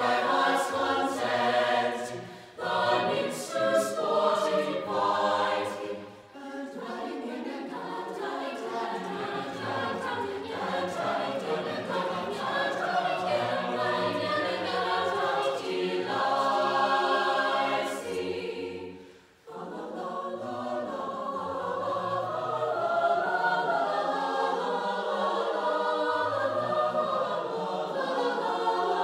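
Mixed choir of women's and men's voices singing a cappella under a conductor. The singing breaks off briefly about two-thirds of the way through, then goes on more softly.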